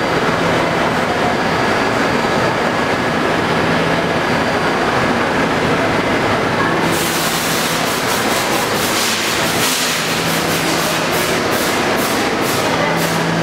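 R68 subway train standing with a steady hum. A hiss comes in about seven seconds in, then the train pulls out with its wheels clicking over the rail joints, the clicks coming quicker as it speeds up.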